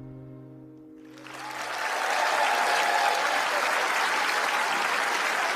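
The last sustained notes of a song fade out, then about a second in an audience breaks into applause that keeps on steadily.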